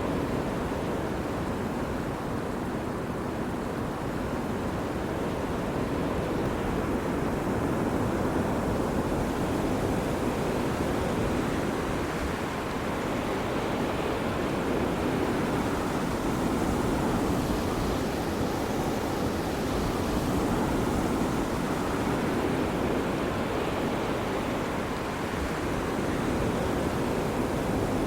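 Ocean surf breaking on the shore in a steady wash, swelling and easing slowly over several seconds.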